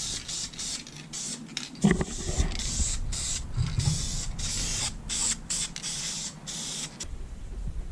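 Aerosol spray paint can spraying a dirt bike frame in a fast string of short hissing bursts, laying down a first coat of paint. The bursts stop about seven seconds in.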